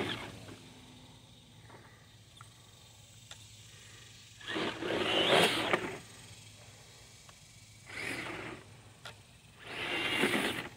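Traxxas TRX4 Sport RC crawler's electric motor and drivetrain whirring in three short bursts of throttle, each about a second long, the wheels spinning in wet mud and water while the truck lies on its side.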